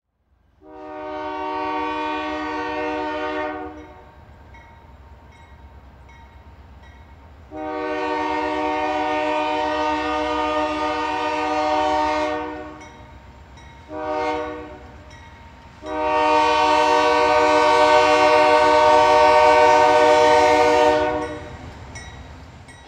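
Locomotive air horn sounding the grade-crossing signal: two long blasts, one short, then a final long one, each a full multi-note chord. A steady low train rumble runs underneath throughout.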